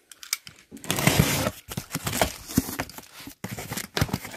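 Utility box cutter slitting the packing tape on a cardboard box, one long noisy cut about a second in, followed by the cardboard flaps scraping and rustling as they are pulled open.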